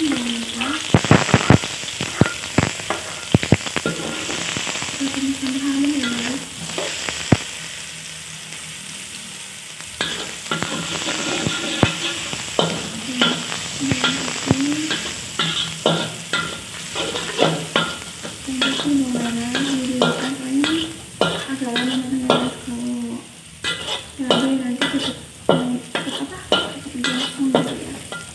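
Sliced garlic and shallots sizzling in hot oil in a wok, stirred and pressed with a metal spatula that scrapes and taps against the pan. The stirring stops for a few seconds near the middle, leaving a quieter steady sizzle, then starts again.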